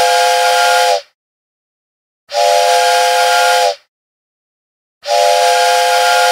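Train whistle sound effect blown three times in identical blasts. Each blast is a chord of several steady tones over a loud hiss and lasts about a second and a half, with silence between them.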